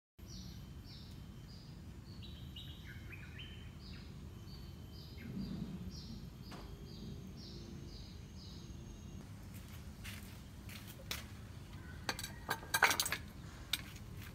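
A bird sings a quick run of short, high chirps, about two or three a second, over a steady low background hum. Near the end come a few sharp clicks and knocks.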